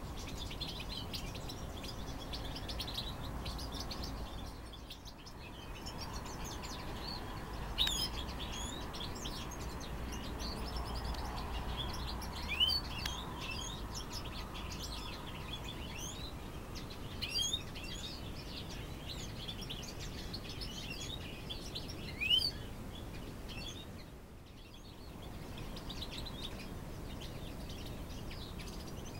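Small aviary songbirds chirping and twittering continuously, many short high calls overlapping, with a few louder single chirps about 8, 12, 17 and 22 seconds in.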